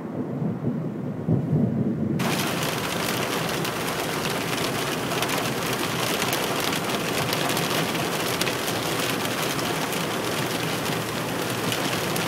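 A low rumble of thunder, then about two seconds in an abrupt change to sleet and hail pelting a car's windshield and roof: a dense, steady patter of many fine ticks.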